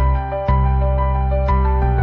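Background music: a gentle melody of held pitched notes with a steady beat.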